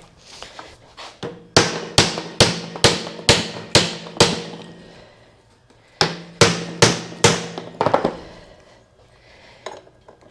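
Hammer striking steel in two quick runs of about seven blows each, a little over two a second, every blow ringing briefly.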